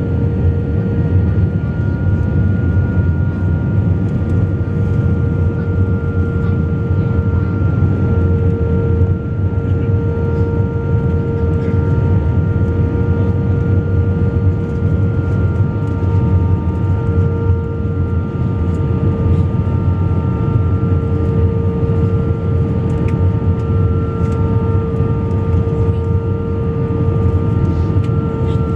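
Cabin noise inside an Airbus A320 on final approach with its flaps extended: a steady deep rumble of engines and airflow with several steady whining tones on top.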